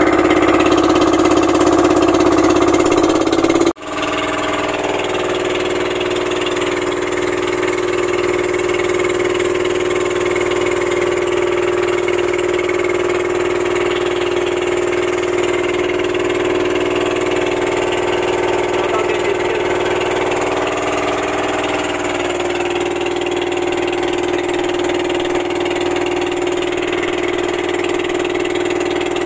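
Boat engine of a motorized bangka running steadily under way, a constant drone with a brief break about four seconds in.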